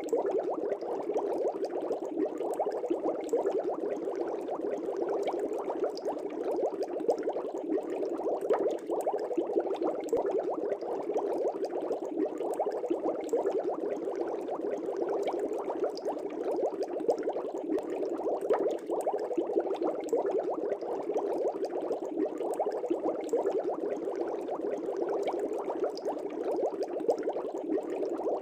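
Aquarium air bubbles rising and bursting in a fish tank, a steady, dense bubbling with many tiny pops.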